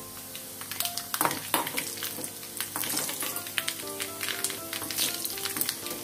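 Dried red chillies and mustard seeds sizzling in hot oil in a small aluminium tempering pan, with scattered sharp crackles and a steel spoon stirring them partway through; background music plays over it.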